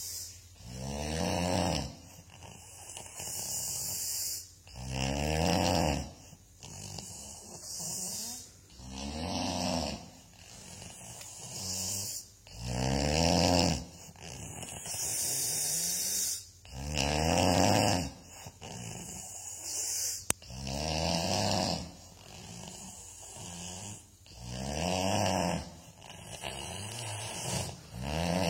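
Snoring in a slow, even rhythm: a loud, buzzing intake about every four seconds, each followed by a softer, breathy exhale.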